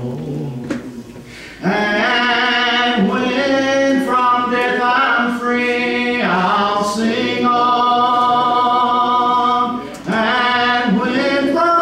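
A man singing a slow hymn unaccompanied, holding long drawn-out notes, with two short pauses: one about a second in and one near the end.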